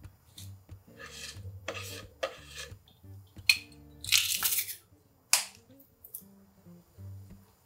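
Food-prep handling sounds over soft background music. Clumps of enoki mushroom are pulled apart and dropped into a soup pan, then a garlic press crushes garlic in a dense crunch about four seconds in, the loudest sound. A short, sharp rasp follows about a second later.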